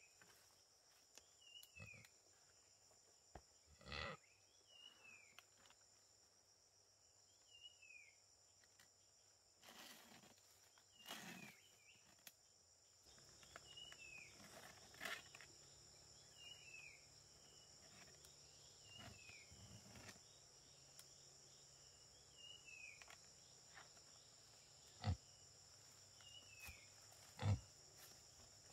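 Faint ambience: a steady high-pitched drone, a short falling chirp repeated roughly every one to two seconds, and a few scattered knocks, the sharpest two near the end.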